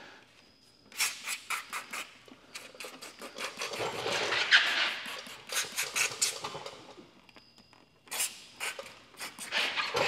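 Hand-held trigger spray bottle spraying tack solution in quick runs of short hisses, several squeezes a second, with a scratchy rubbing sound about halfway through.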